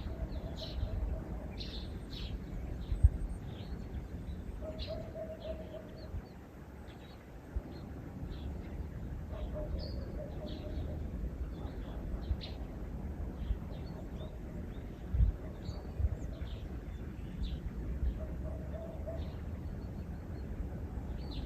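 Small birds chirping in short, scattered high notes, with a lower held call repeating every four to five seconds. A steady low rumble runs beneath, with two sharp knocks, the louder about three seconds in.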